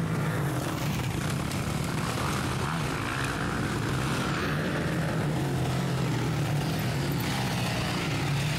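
Motocross dirt bike engines running hard on a dirt track, a steady buzzing drone whose pitch rises and falls as the riders work the throttle.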